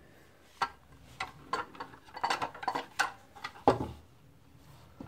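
Irregular small clicks and knocks of the plastic parts of a Lexmark laser-printer drum (photoconductor) unit being handled and taken apart, with a cluster of quick clicks in the middle and a firmer knock near the end.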